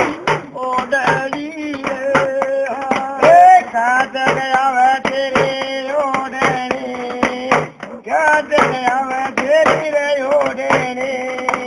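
A man singing a Haryanvi folk song in long, gliding held lines over a steady drum beat and a sustained low tone.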